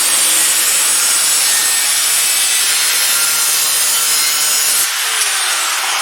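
Angle grinder cutting steel held in a vice, a loud steady harsh grinding; it is switched off about five seconds in and its whine falls as the disc spins down.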